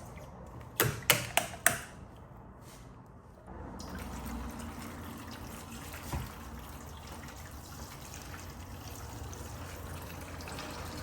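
A handful of sharp clicks and knocks in quick succession about a second in, then water starts running steadily about three and a half seconds in, like a tap running or water being poured.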